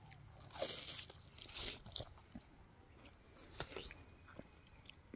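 Faint wet crunching and chewing of a bite of fresh watermelon, a few soft crunches in the first two seconds, then scattered small clicks.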